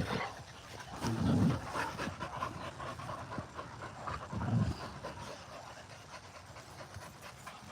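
Dogs panting and moving about as they play together, with two short low sounds, about a second and a half in and again about four and a half seconds in.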